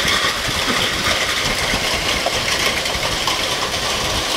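Heavy downpour: a dense, steady patter of falling rain with many small hits, over a low rumble of wind.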